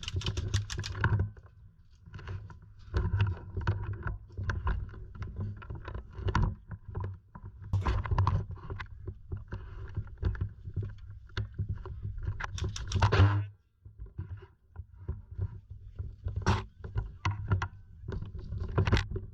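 A steady low rumble of wind or handling noise on the microphone, with many irregular sharp clicks and rattles that come in dense clusters about a second in, around eight seconds and around thirteen seconds.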